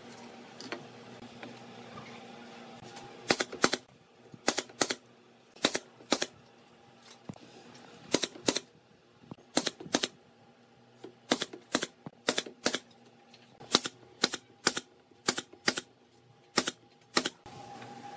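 Pneumatic brad nailer firing into pine slats: about two dozen sharp shots, often in quick pairs, starting about three seconds in.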